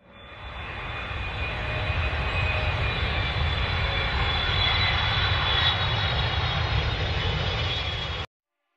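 Airplane engine noise fading in and running steadily with a faint high whine, then cutting off abruptly near the end.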